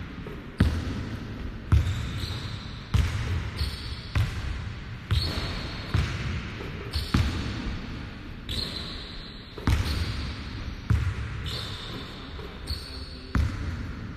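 Basketballs bouncing on a hardwood gym floor, a sharp echoing thud roughly once a second, unevenly spaced.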